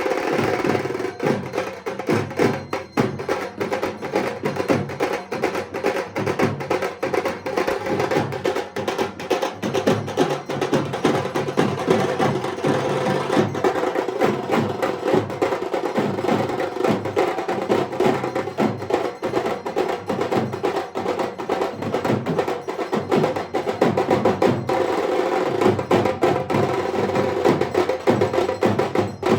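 Dhak, the Bengali barrel drum, beaten fast with thin sticks in a dense, unbroken rhythm of sharp strokes.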